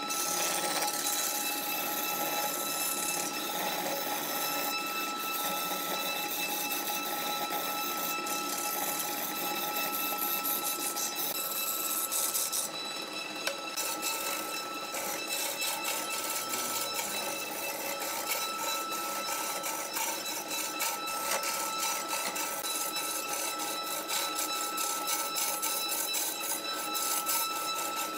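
Wood lathe running with a steady high whine while a hand-held turning gouge shaves a spinning log blank, a continuous scraping hiss of wood being cut. In the second half the cutting takes on a fast, clattering texture.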